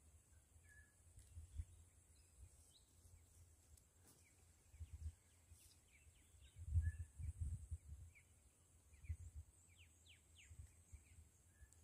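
Faint outdoor ambience: short, scattered bird chirps over a low, uneven rumble that swells loudest about seven seconds in.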